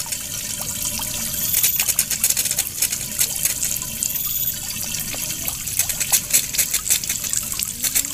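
A small fountain jet spraying water up over a pond, with the falling droplets splashing steadily back onto the water surface as a dense run of tiny splashes.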